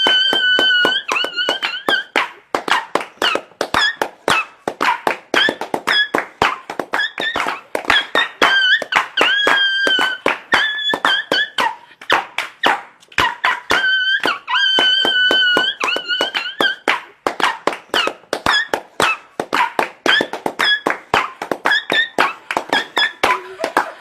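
Music: a melody of held high notes over a fast, dense run of sharp clicking beats, with the same phrase coming back about fourteen seconds later.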